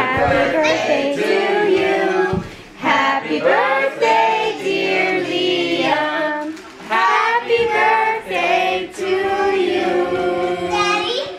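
Several voices singing a song together, children's voices prominent, in phrases with short breaks between them.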